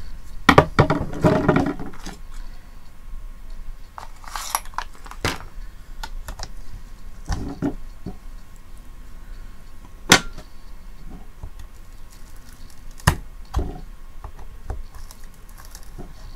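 Small hand tool and fingers working on a portable radio's casing as its speaker is pried loose: a short burst of rattling and knocking at the start, then scattered light clicks and scrapes, with two sharper clicks about ten and thirteen seconds in.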